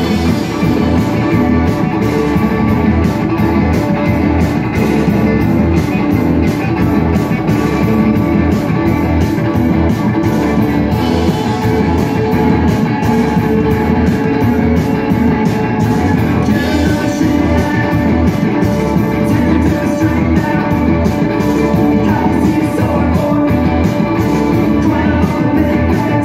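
Rock band playing live, electric guitars over a drum kit keeping a steady beat, loud and continuous.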